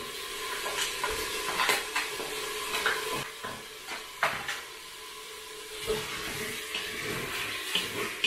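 Lardons and chicken pieces sizzling as they brown in the pot of a Cookeo electric multicooker, with a wooden spoon stirring them and knocking irregularly against the pot.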